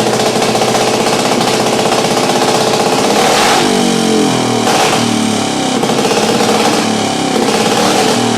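Single-cylinder race engine running under load on a dyno during break-in. It holds a steady speed, then from about three and a half seconds in its revs rise and fall.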